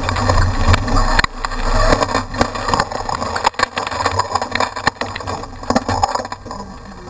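Off-road race truck engine running, with many short knocks and rattles. The low engine rumble is strongest in the first second, then drops away.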